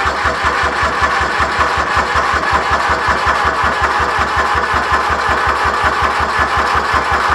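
Electric starter cranking the Grasshopper 721D mower's Kubota three-cylinder diesel at a steady pace, a regular beat of compression pulses under the starter's whine, without the engine catching. The owner fears the battery is too weak and that it will need a jump.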